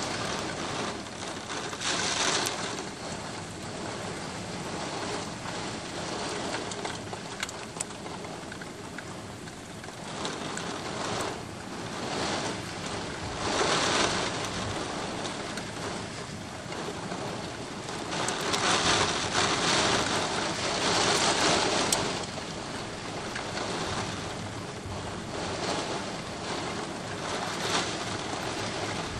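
Heavy rain pouring down on a city street, a steady hiss of falling water that swells louder in several surges.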